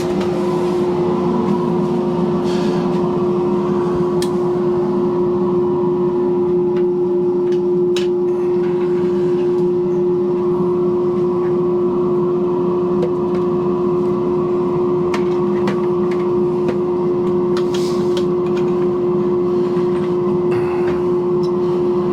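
A workshop machine's electric motor running steadily with a constant hum, a few faint clicks and knocks over it.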